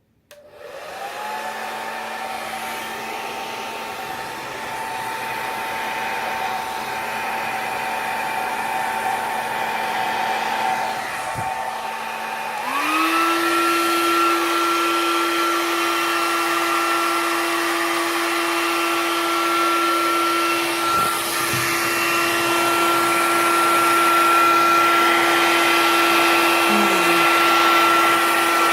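Hand-held blow dryer switched on, running with a steady rush of air and a motor whine. A little before halfway through it steps up to a higher, louder speed setting, the whine jumping in pitch.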